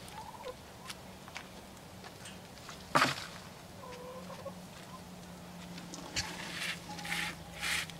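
Chicken clucking a few times, short low calls, with a single sharp knock about three seconds in and some rustling near the end.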